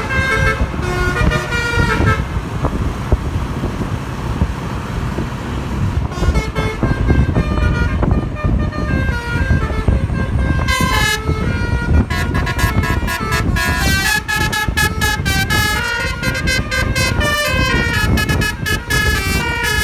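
Basuri-style musical air horn on a truck, driven by a DAV air horn tone module, playing a melody of stepped horn notes over the truck's engine and road rumble. The tune breaks off about two seconds in, leaving only the rumble for a few seconds, then resumes in runs of notes with short pauses.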